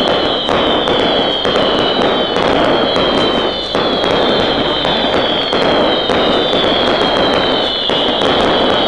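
A firework burning continuously: a loud, steady hiss laced with dense crackling, over a high whistle that slides down in pitch again and again, about every second and a half.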